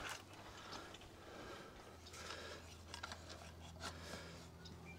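Faint scattered clicks and light scrapes of a handheld bandsaw being handled while it is not running, with a low steady hum under them from about two seconds in.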